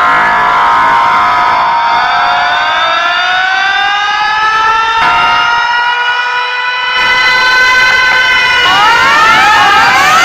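Car sound system playing a siren-style effect loudly through its horn speakers: several tones glide slowly upward together, then near the end switch to quick up-and-down sweeps.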